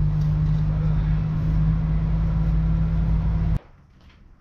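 A loud, steady low rumbling drone that cuts off suddenly about three and a half seconds in.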